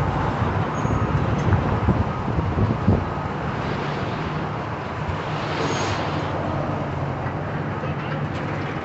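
A large engine running steadily under a wash of outdoor noise, a little louder for the first few seconds.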